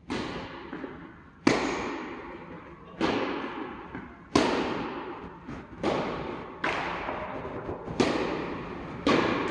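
Tennis rally in doubles play: the ball struck by rackets in a steady exchange, about eight sharp hits roughly every one and a half seconds, each trailing off in an echo, with a few lighter knocks between them.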